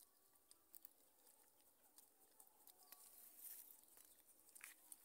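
Near silence with faint scattered clicks and ticks from black-and-white colobus monkeys handling and chewing maize kernels.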